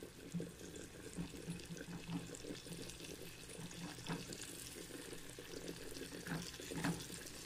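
Melted margarine sizzling and bubbling in a small saucepan over a gas flame, stirred with a silicone spatula that scrapes the pan now and then.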